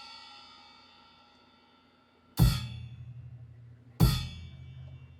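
Nuosheng 16-inch quiet crash cymbal hit with a drumstick: it rings out and fades from a hit just before, then is struck twice more, about a second and a half apart, each time together with a bass drum thump, and rings on after each crash.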